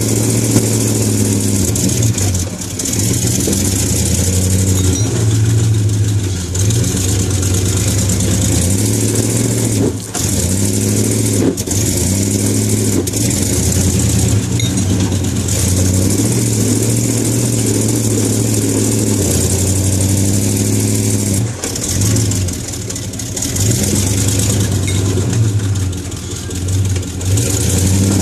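Truck engine running under load, revving up and down in repeated surges while the truck climbs a rocky wash on a tow strap.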